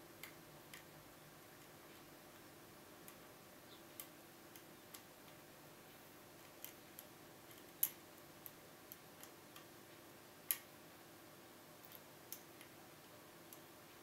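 Small, sharp metallic clicks at irregular intervals as a pick works the pins inside a Kaba Gege pExtra pin-tumbler cylinder, with two louder clicks past the middle.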